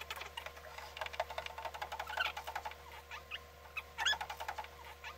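A stick stirring a plastic jar of hand soap and water, clicking rapidly against the sides with short high squeaks now and then.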